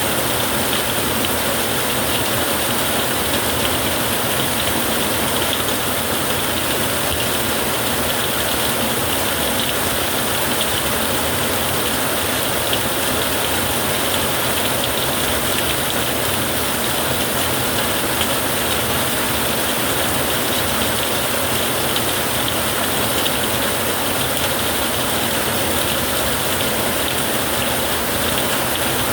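Steady heavy rain drumming on a tin roof, an even unbroken downpour with no thunderclap.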